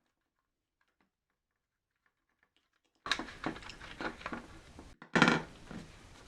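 Silence, then about three seconds of clicking and knocking handling noise, as of tools or small parts being handled, with the loudest knock a little past halfway. The sound starts and stops abruptly.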